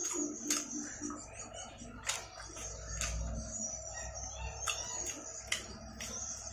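Eating by hand, with irregular sharp wet clicks and smacks from chewing fried chicken and rice, and a brief low rumble about halfway through.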